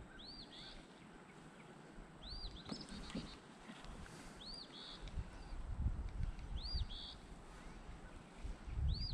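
A songbird repeats the same short phrase about every two seconds: a high arching note followed by a quick rapid run. A low rumble joins from about halfway through.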